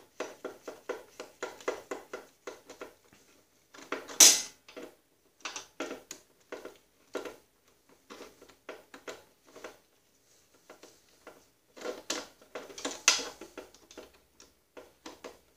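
Clamp on a rubber axle boot being tightened with a nut driver: runs of quick small metallic clicks, with a louder knock about four seconds in and another near thirteen seconds.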